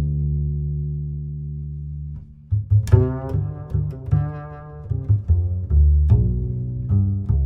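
Music with a heavy bass line playing through a small speaker: a deep held note fades over about two seconds, then short melodic notes and punchy bass notes follow.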